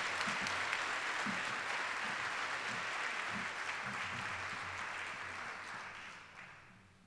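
An audience applauding steadily, fading away over the last couple of seconds.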